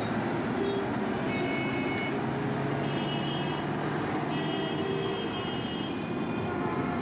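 Steady din of town street traffic below, with short high-pitched horn-like tones sounding several times.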